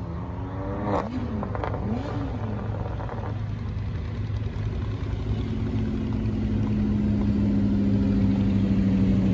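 Lamborghini Huracán's V10 engine blipped a couple of times, the pitch rising and falling, in the first few seconds. It then settles into a steady engine note that grows louder as the car approaches.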